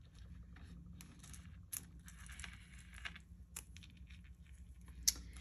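Faint, irregular clicks and rustles of small pieces of costume jewelry being picked up and sorted by hand, with a sharper tick about five seconds in.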